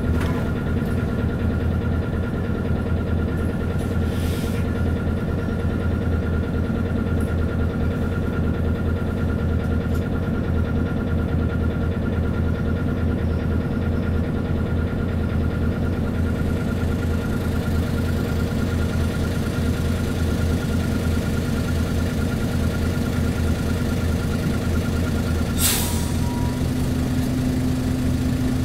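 Isuzu KC-LV bus's V8 diesel engine idling steadily while the bus stands still, heard from inside the cabin. Near the end a short, sharp hiss of compressed air, after which the engine note changes slightly.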